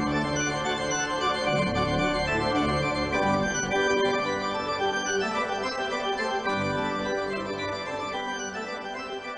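Organ music of sustained, full chords that change slowly, gradually fading out over the last few seconds.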